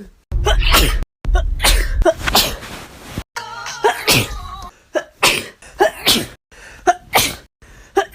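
A person's sneezing fit: a rapid run of about eight sneezes, roughly one a second, spliced together with abrupt cuts between them.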